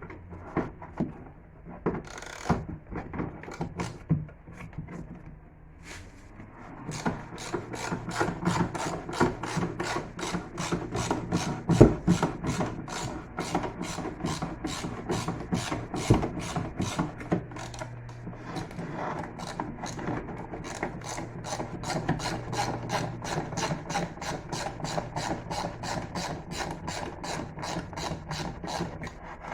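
Hand tools working on a car's rear shock absorber mounting: a few scattered metal knocks, then from about seven seconds in a long run of rapid, even clicks, several a second, as of a ratchet wrench turning a nut. A low steady hum joins partway through.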